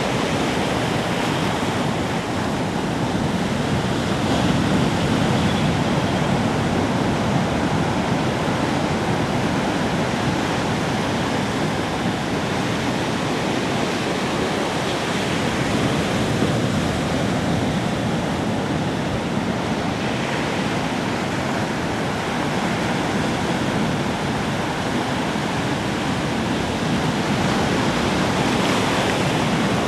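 Ocean waves breaking and washing on a beach in a steady wash, gently swelling and easing every few seconds.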